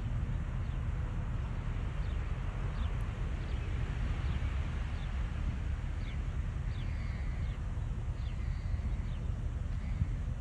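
Small birds calling over and over in short, quick downward chirps against a steady low rumble.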